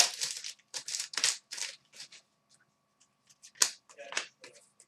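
Trading cards and their packaging being handled: a quick run of short rustles and crisp clicks, busy for the first two seconds, then a pause and a few more near the end.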